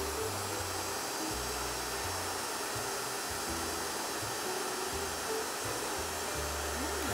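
Handheld hair dryer blowing steadily, running without a break.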